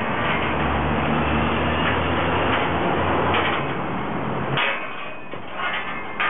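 Street traffic noise with a vehicle's engine rumble that falls away about four and a half seconds in, and a few sharp knocks and clatters, the loudest near the end.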